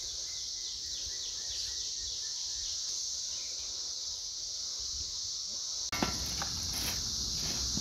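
Steady high-pitched insect chorus. From about six seconds in, a metal shovel scrapes and scoops compost in a wheelbarrow in several short strokes.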